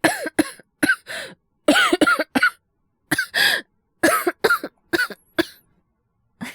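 A young man's acted coughing fit: about fifteen harsh coughs in clusters of two to four, some with a little voice in them, over five and a half seconds. It is a cold or asthma cough performed for a cough-voice drama.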